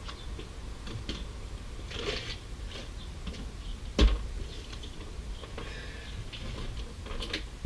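Light clicking and rustling as a rooftop tent's fabric and fittings are handled by hand, with one sharp knock about four seconds in.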